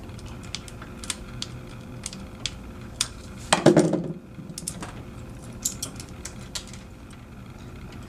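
Scattered light clicks and taps of tool and fingers on a small plastic keystone jack as network cable wires are punched down into its slots with a Klein punchdown screwdriver, with one louder handling bump about three and a half seconds in.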